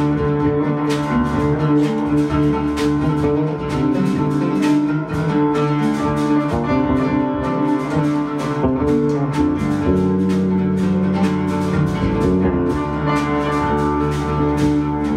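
Live band music: a Pensa electric bass playing a low bass line together with guitar, piano and percussion, with frequent sharp percussion strikes over sustained tones.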